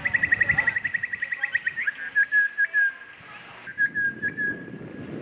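Referee's pea whistle: a loud trilled blast for about two seconds, then a steadier, slightly lower whistle with short swells, broken once near the end.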